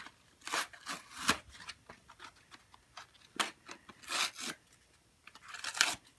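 Cardboard toy packaging being handled and pulled open: irregular short bursts of rubbing and scraping.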